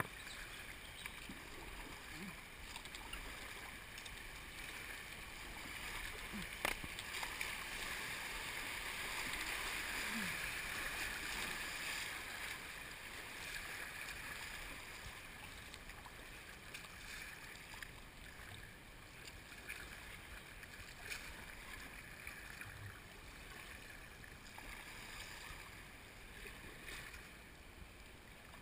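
Flowing river water rushing around a paddled kayak, swelling louder for a few seconds midway as it runs over a small riffle, then easing; light paddle strokes and one sharp click about seven seconds in.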